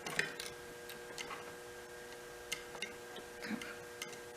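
Light, irregular clicks and ticks of small hand tools working on a potentiometer's mounting, over a faint steady hum.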